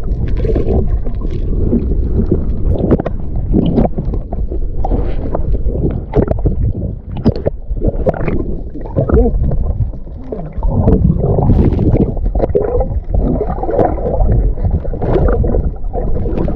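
Muffled underwater sound picked up by a camera held below the surface: a churning rumble of water with frequent sharp knocks and clicks.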